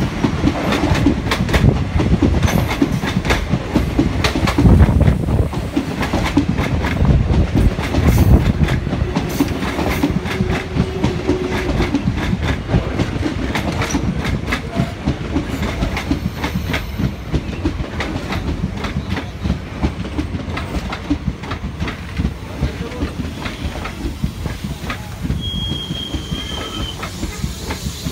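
Passenger coaches of an Indian Railways train rolling past close by, their wheels clattering over the rail joints in a dense, fast clickety-clack over a low rumble. The clatter eases off slightly in the second half.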